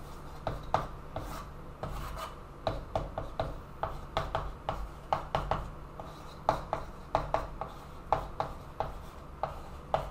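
Chalk writing on a chalkboard: a quick run of short taps and scrapes, several a second, as letters and symbols are written.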